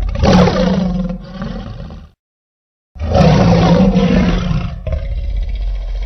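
Acrocanthosaurus dinosaur roar sound effect: a deep roar swells just after the start and breaks off about two seconds in, then after a second of silence a second long roar begins and carries on.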